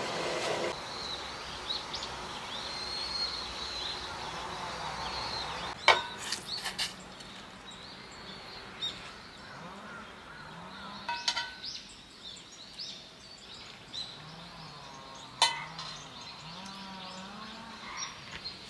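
Birds chirping outside, with a steady hiss from the steaming dumpling pan for the first six seconds or so. Then a few sharp metal clinks of the stainless steamer and utensils about six, eleven and fifteen seconds in as the dumplings are lifted out.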